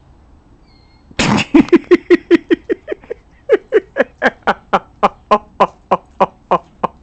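A person laughing in a long run of quick "ha-ha" pulses, about four or five a second, starting a little over a second in and carrying on.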